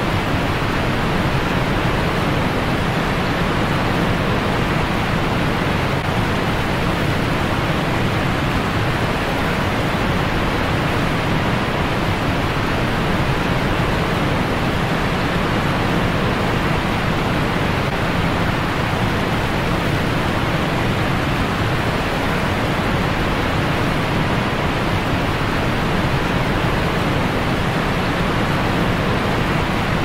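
Waterfall and fast-flowing stream water rushing, a loud steady noise that never changes.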